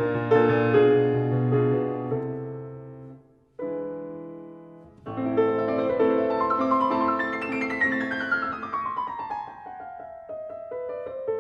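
Background piano music playing slow, gentle chords. It fades almost out about three and a half seconds in, then resumes, with a falling run of notes in the second half.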